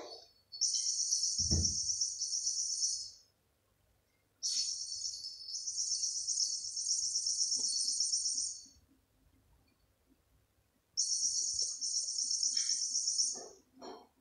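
High-pitched chirping trill with a fast flutter, in three bursts of about three to four seconds each. A low thump about a second and a half in.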